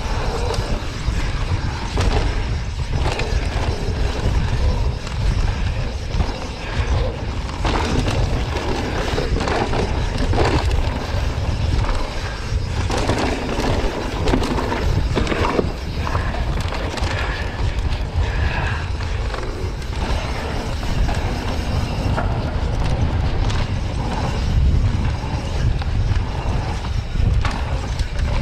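Mountain bike ridden fast down a dry dirt and rocky trail: a steady roar of wind on the camera microphone and tyres rolling over dirt and gravel, with frequent knocks and rattles from the bike over bumps.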